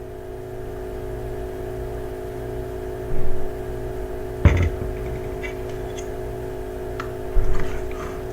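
Steady machine hum with a low rumble, broken by three dull knocks.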